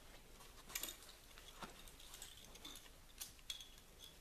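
Near silence in a small room, broken by a few faint clicks and taps of small objects being handled on a table.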